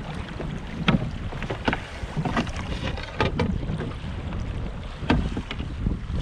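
Canoe under sail through choppy water: waves slapping and splashing against the hull, with several sharper slaps, over a steady low rumble of wind on the microphone.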